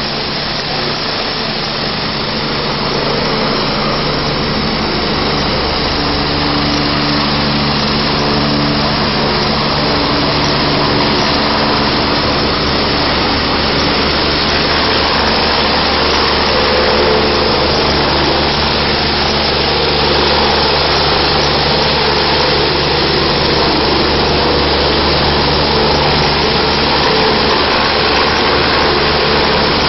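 Medical helicopters' turbine engines and rotors running close by as one lifts off and hovers just above the rooftop helipad: a steady whine and low hum over a broad rushing roar, growing louder a few seconds in.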